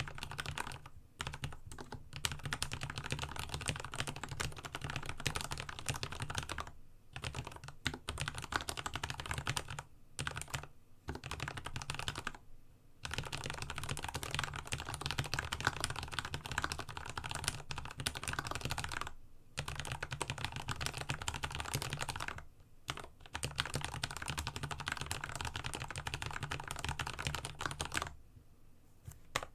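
Fast, continuous typing on a Dygma Raise split mechanical keyboard fitted with Cherry MX Red linear switches lubed with a Krytox 205g0 and 105 mix. It comes in long runs of keystrokes broken by a few brief pauses.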